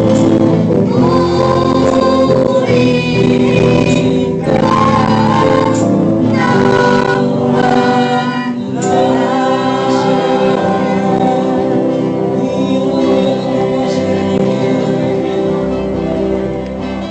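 A live worship band playing a gospel song: a girl sings into a microphone over electric guitars, and about halfway through the singing gives way to the guitars alone.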